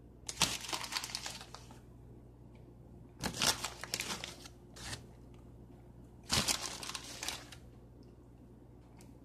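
Plastic bag of chopped walnuts crinkling in three rustling bursts, about a second long each, as nuts are pinched out and sprinkled onto muffin batter.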